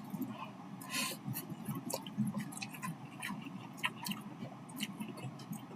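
Close, quiet chewing of a mouthful of soft, cheesy instant noodles: small wet mouth clicks, with a short hiss about a second in.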